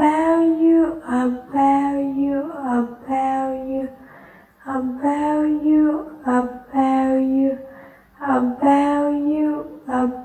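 A single higher-pitched voice singing the same short phrase over and over, each phrase a second or so of held notes with brief pauses between.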